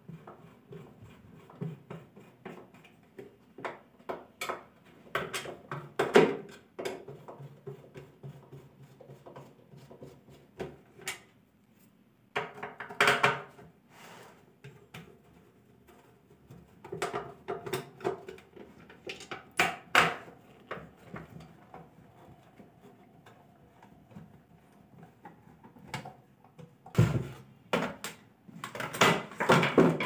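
Screwdriver turning out screws from the plastic base of a Snapple mixer grinder, with irregular clicks, scrapes and knocks as the plastic housing is handled and taken apart; the louder clattering clusters come near the middle and near the end.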